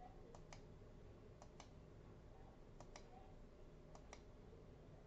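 Faint computer mouse button clicks, four of them about a second apart, each a quick double tick, as numbers are entered on an on-screen calculator.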